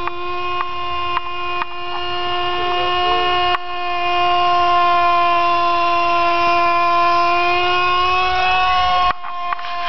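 Lite Machines model 110 RC helicopter's .07 model engine running at high speed in flight: a steady, high-pitched buzzing drone. It gets louder a few seconds in and its pitch sags slightly near the end.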